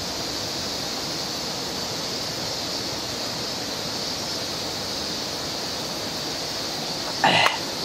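Steady rushing of a river, with a constant high hiss over it. Near the end, a short breathy voice sound falling in pitch.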